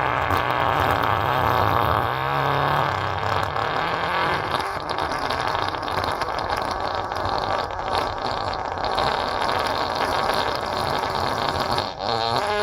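Pooping and farting sound effect: a continuous run of loud fart noises, with wavering pitched toots about two seconds in and again near the end.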